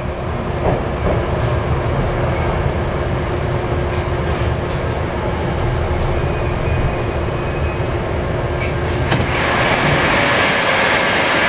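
Moscow Metro 81-775/776/777 'Moskva-2020' train running into a station and slowing: a steady rumble of wheels and running gear with a faint steady tone. About nine seconds in a click sounds and a steady hiss begins as the train comes to a stand.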